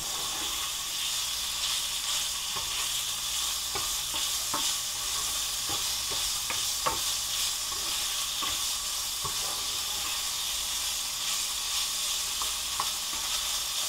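Diced chicken and garlic sizzling steadily in a hot nonstick frying pan, with light, irregular scrapes and taps of a spatula as the pieces are stirred.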